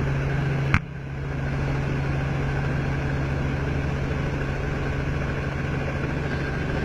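Light helicopter's engine and main rotor running, heard inside the cabin as a steady drone with a fast low rotor beat. A sharp click comes about a second in, and the sound dips briefly before building back up.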